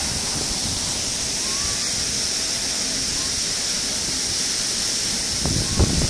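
Steady rush of a waterfall pouring onto rocks, with a couple of short low thumps near the end.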